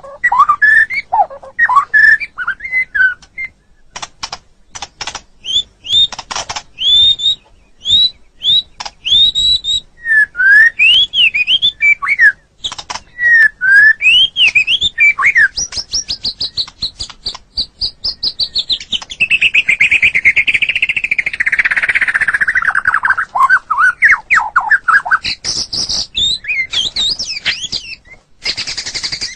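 White-rumped shama (murai batu) singing a continuous, varied song: clear rising and falling whistled phrases mixed with sharp clicking notes, and partway through a long run of rapid notes that slides steadily down in pitch.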